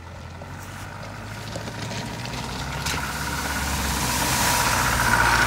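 Land Rover Discovery 1's 200Tdi 2.5-litre four-cylinder turbodiesel running as it drives up, growing steadily louder. About four seconds in, water splashes hard around the tyres as it drives through a shallow ford.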